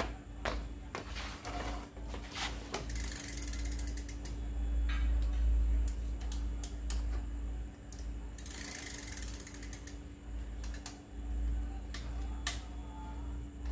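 Mountain bike's rear wheel and drivetrain turned by hand on a stand while a newly fitted rear derailleur is set up. The rear hub's freewheel ratchets in two fast clicking runs, about three and eight seconds in, among scattered clicks and knocks of the chain and derailleur.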